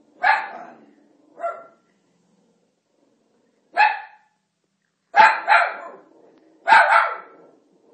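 Italian greyhound barking in short, separate barks spaced out with pauses, two of them coming in quick succession about five seconds in.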